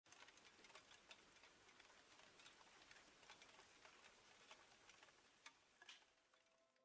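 Near silence: very faint, irregular crackling ticks from a small wood fire over a low hiss, thinning out near the end.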